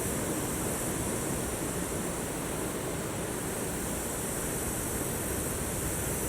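Ocean waves washing onto the shore, a steady rushing noise with a constant high hiss above it.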